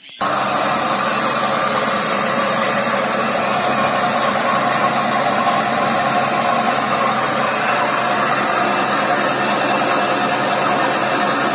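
Homemade belt-driven drill press running: its electric motor and spinning spindle make a loud, steady hum and whir that starts abruptly just after the start and holds even throughout.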